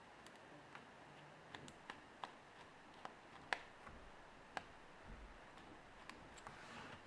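Faint, irregular light clicks and taps of a small precision screwdriver working the tiny screws of an iPhone 3G, with a sharper click about halfway through.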